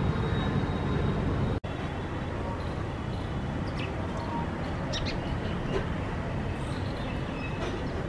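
Steady rumbling background noise, broken by a brief dropout just before two seconds in, with a few short high chirps from house sparrows bathing in a shallow water dish.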